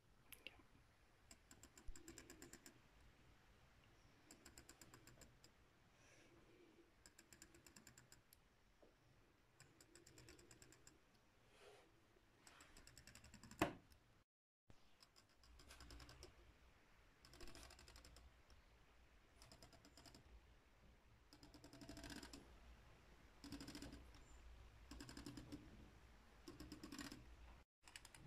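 Ratchet on a Lego Technic rear wheel: a plastic catch plate clicking over the teeth of a gear in short bursts of rapid ticks, about one burst every second or so, as the wheel turns forward and is stopped from reversing. Faint, with one sharper knock about halfway through.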